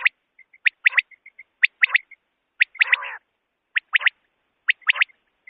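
Common quail calling: a sharp three-note call repeated about once a second, with soft short notes in between. A short harsh rasping burst comes about three seconds in.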